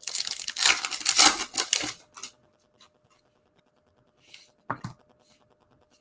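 A foil trading-card pack, a 2020 Panini Legacy Football hobby pack, torn open by hand: a crackly tearing for about two seconds. Later come a faint rustle and a short click as the stack of cards is handled.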